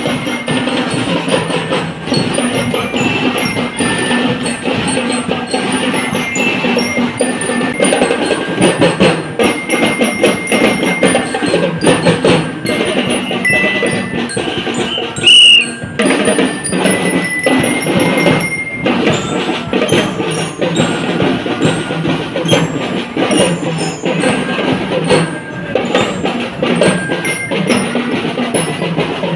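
Marching band playing: bell lyres ring out the tune over a steady drum beat of rapid strikes. About halfway through, one short, very loud high-pitched tone cuts through.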